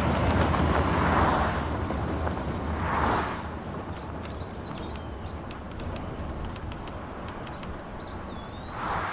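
Outdoor nature ambience: two swells of rushing, wind-like noise in the first few seconds, then small birds chirping and twittering, with a warbling call near the end, over a low steady hum.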